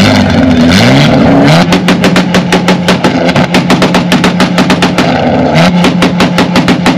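Car engine revved very loudly: the note climbs about a second in, then is held at high revs with a fast, even stutter. Near the end it climbs a little higher and keeps stuttering.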